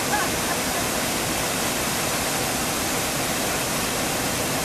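Fast-flowing water in a mountain stream, rushing steadily.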